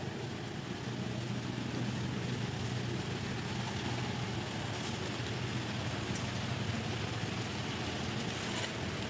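Steady low engine-like hum with a constant background hiss, unchanging throughout, with a few faint clicks.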